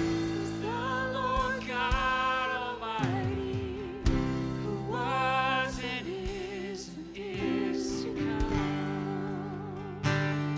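Live gospel worship song: a singer holding long notes with vibrato over sustained instrumental chords, in two phrases with a pause between them.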